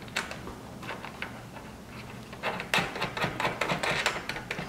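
Small clicks and taps of handling as a hand works up under a fibreglass rear spoiler, feeling for the small serrated nuts on its mounting studs. A few scattered clicks, then a quick run of clicks about halfway through.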